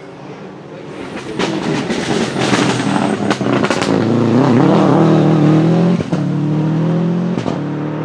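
Subaru Impreza 555 Group A rally car's turbocharged 2.0-litre boxer engine approaching, passing at speed and pulling away, revving hard with a rising and falling pitch. It is cut through by several sharp anti-lag backfire bangs.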